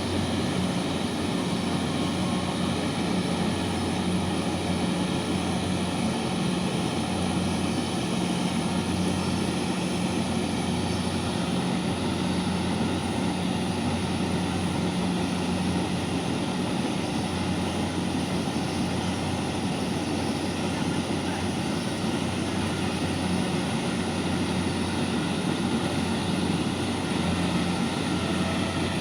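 Kubota DC68G combine harvester running steadily while harvesting paddy: an even engine drone with a constant low hum and the rush of the threshing machinery, no change in speed.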